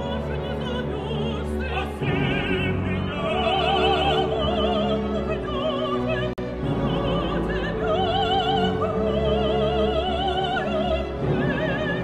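Operatic female voice, a mezzo-soprano, singing long high notes with wide vibrato over an orchestra with bowed strings. The sound drops out very briefly about six seconds in, then the singing goes on.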